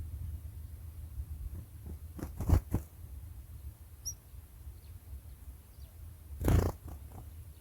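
Steady low rumble with a few knocks about two and a half seconds in and a louder thump near the end. In between, a faint short bird chirp or two.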